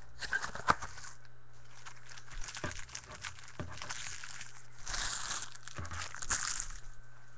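Trading card pack being torn open and its wrapper crinkled, as a string of irregular crackling rustles and small clicks, busiest a little after the middle.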